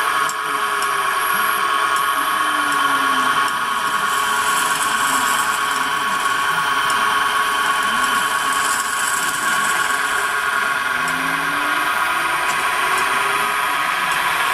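CNC milling machine's replacement spindle motor running steadily at about 1250 rpm with a steady whine. A fainter drive-motor tone falls in pitch over the first few seconds and rises again near the end as the axes move.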